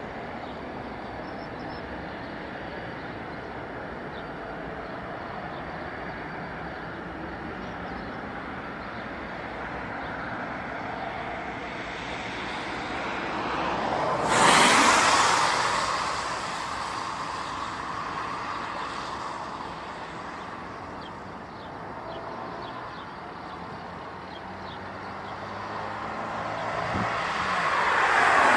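Steady engine noise outdoors, swelling to a loud vehicle pass-by about halfway through, its pitch falling as it goes away, with a second pass-by building near the end.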